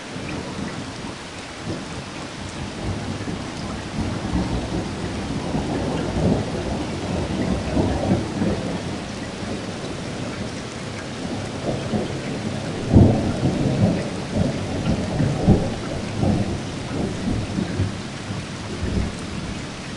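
Heavy rain falling: a steady hiss with repeated low thuds and rumbles, the loudest about 13 seconds in.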